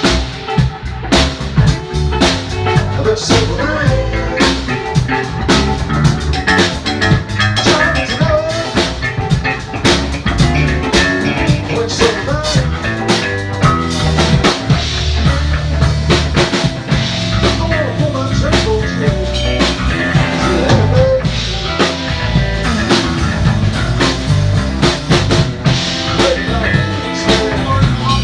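Loud music: a drum kit and guitar playing a steady rock beat.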